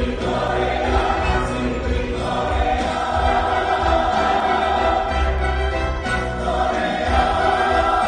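Large church choir singing long held chords with orchestral accompaniment.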